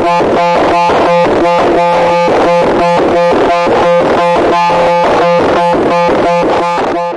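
A loud, harsh pulsing noise: a steady buzzing drone under a fast even beat of about three pulses a second.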